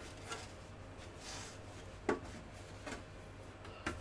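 Soft rustling of a non-woven fabric protective bag being pulled off a small metal PC case, with a few light knocks and clicks as the case is handled.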